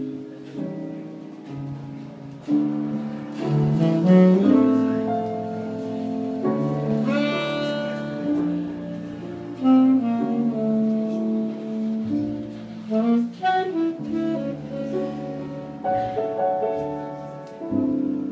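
Jazz alto saxophone playing a melodic line of held notes and quick runs, with the band accompanying.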